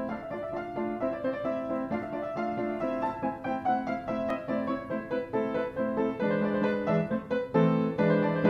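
Piano music: chords and a melody line, getting louder about seven and a half seconds in.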